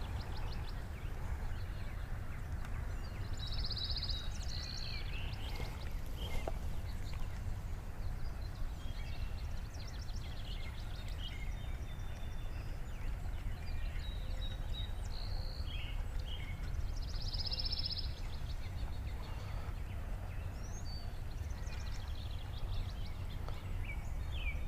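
Birds chirping and trilling at intervals around a pond at dawn, with a brief burst of trills about four seconds in and again near the middle, over a steady low rumble.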